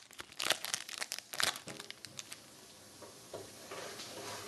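Crinkling and tearing of a hockey trading card pack's wrapper as it is handled and opened: a quick run of sharp crackles, then quieter rustling from about halfway through.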